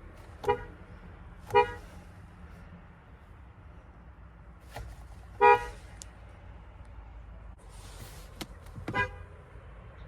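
Car horn sounding four short toots: two about a second apart, a slightly longer one a few seconds later, and a last one near the end, over a low steady rumble.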